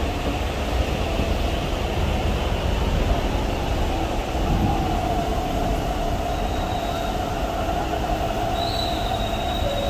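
MTR East Rail line R-Train electric multiple unit pulling out of the station: the VVVF inverter and traction motors give a steady whine that rises a little about five seconds in, over rumbling wheels. A thin high squeal joins near the end.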